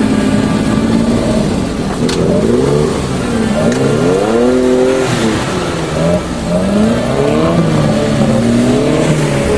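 Suzuki Vitara 4x4 engine revving up and down again and again while driven off-road, its pitch rising and falling about once a second.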